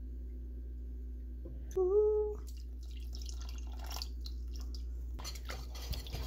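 A whisk stirring thick cheese sauce in a pot: faint scraping and clinking that grows busier about five seconds in, over a steady low hum. About two seconds in, a short hummed "mm" that is the loudest sound.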